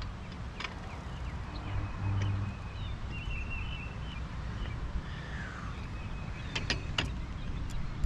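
Outdoor background noise: a steady low rumble with faint, short high chirps scattered through it and a few sharp clicks near the end.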